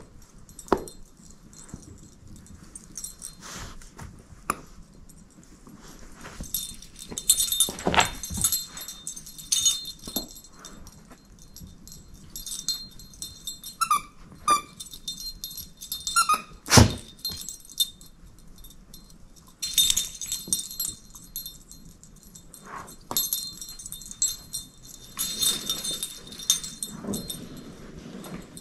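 A dog chewing and shaking a plush Christmas toy with a small jingle bell: rustling and mouthing, the bell jingling in spells, and knocks and thumps as the toy hits the carpet. A few short high squeaks come about halfway through, and one sharp knock just after.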